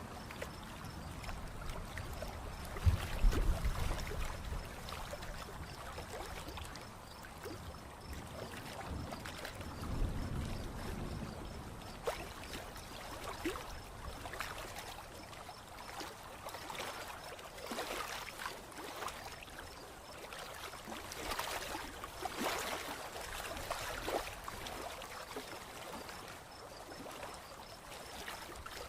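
Approaching-storm ambience outdoors: a steady rushing, watery noise with scattered crackles, and two short low rumbles about three and ten seconds in.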